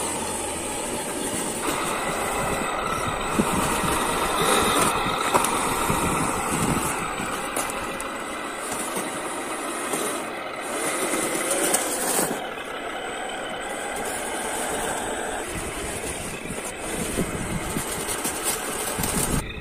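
A 1/8-scale RC Ford truck runs while it pushes snow with its front plow blade. The engine-like running sound is steady, with small swells in level, and its tone shifts about twelve seconds in.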